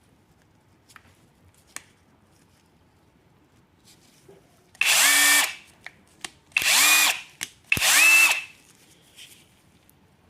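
Power drill run in three short bursts, the motor whine spinning up and winding down each time, cleaning the threads of oil pan bolts so they torque correctly.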